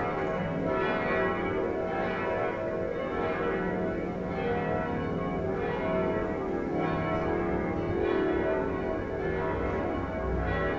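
Church tower bells ringing a festive peal, several bells sounding together with overlapping strokes and long ringing tones.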